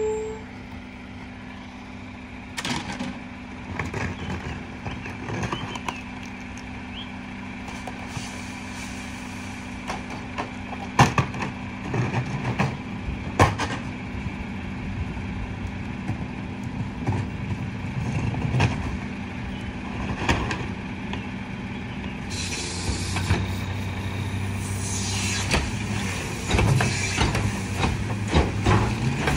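Garbage truck's diesel engine idling steadily at the back of a McNeilus rear loader while a trash can is emptied into the hopper by hand, with a few sharp bangs of the can against the hopper. From about two-thirds of the way in, a hiss and clatter of the cart tipper's hydraulics join as a wheeled cart is lifted.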